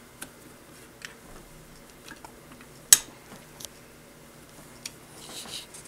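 Small metallic clicks and taps from a CZ 241 shotgun's action being worked by hand, as the operating handle and breech bolt are being freed. There is one sharp click about three seconds in, and a brief rustle near the end.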